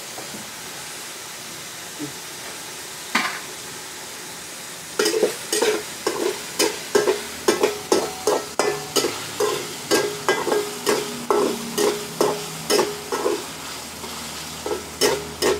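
Metal spatula scraping and clanking against a steel wok as garlic is stir-fried over a gas burner, with a steady frying hiss underneath. From about five seconds in, the stirring strokes come about two a second, each leaving a short metallic ring, with a brief pause near the end.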